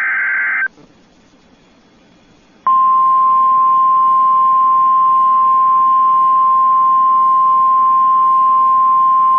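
Emergency Alert System broadcast: the last of the SAME digital header bursts, a harsh warbling data screech lasting under a second, then a brief pause and a steady single-pitch 1050 Hz National Weather Service alert tone, which starts about three seconds in and signals an incoming flash flood warning.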